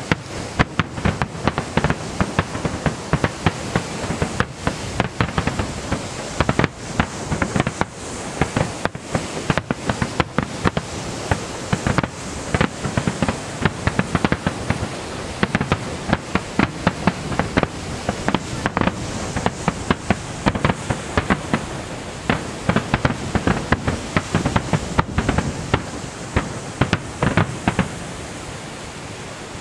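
Fireworks finale: a dense, rapid barrage of sharp bangs and crackles, several a second, over a continuous rumble. The bangs thin out over the last couple of seconds.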